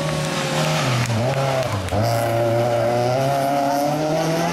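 Rally car engine running hard. Its pitch drops sharply twice, about a second and two seconds in, as the driver lifts off or changes gear, then climbs steadily as the car accelerates away.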